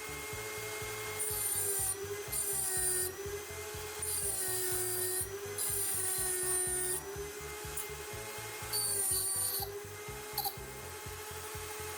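A small power tool's motor running with a steady whine, with repeated short bursts of hissy grinding, several times, as it works on the laptop hinge.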